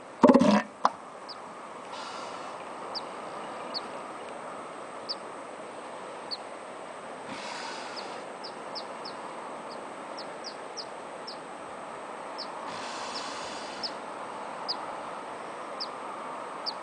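Sleeping sea lion snoring: a slow, noisy breath about every five seconds over a steady hiss. Small birds chirp throughout in short, high chirps.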